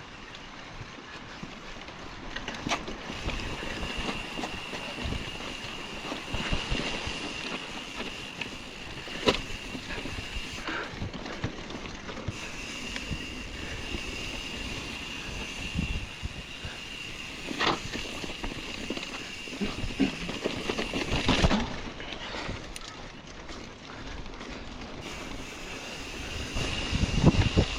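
Mountain bike rolling over a rough dirt trail: tyres and frame rattling with frequent knocks and clatters, wind on the microphone, and a steady high-pitched whine that comes and goes. The clatter gets louder and heavier near the end.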